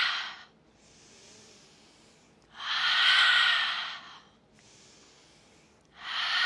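A woman breathing in a slow cycle: loud, breathy exhales through the mouth, one at the start, another about 2.5 s in and a third near the end, each lasting over a second, with much fainter inhales through the nose between them.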